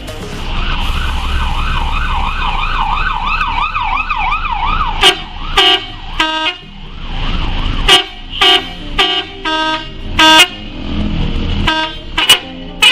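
Bus telolet musical horn being tested. It plays a warbling siren-like tone for about four seconds, then a rapid series of short pitched toots.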